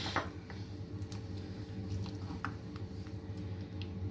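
Silicone spatula folding chopped fruit into thick custard in a bowl: soft, faint squelching with a few light ticks, over a steady low hum.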